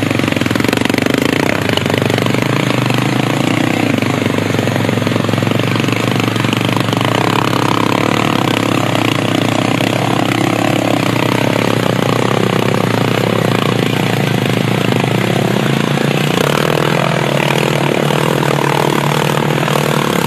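Honda TRX700XX ATV's single-cylinder four-stroke engine running steadily with a rapid pulsing beat, its note shifting a little about two thirds of the way through.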